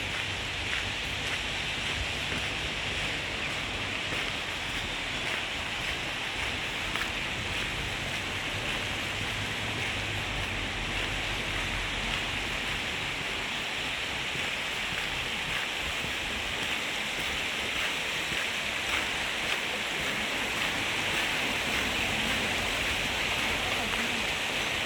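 Steady hiss of water, with a few faint ticks now and then.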